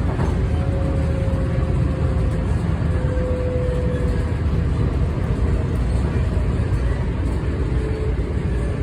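Inside a moving commuter train car: steady low rumble of the train running along the track, with a faint whine coming and going.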